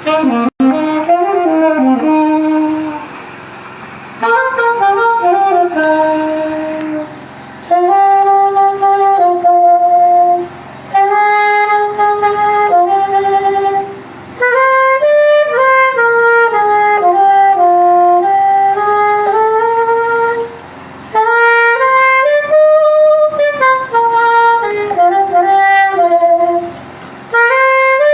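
Saxophone playing a slow hymn melody in phrases of a few seconds, with short breaks between them.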